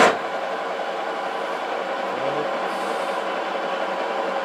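Metal lathe starting abruptly and then running steadily under power, turning a long screw blank during thread-cutting passes.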